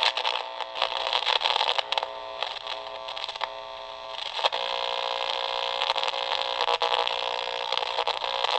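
Crystal radio played through a small amplifier speaker: static hiss with a steady buzzing hum and scattered crackles and clicks as the foil tuner slides along the coil, getting louder about halfway through. Some signal is being picked up but no clear station.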